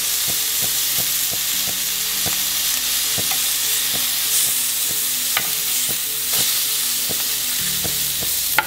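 Chicken breasts sizzling steadily in a hot ridged grill pan, with scattered light pops and clicks as they spit and are turned with metal tongs.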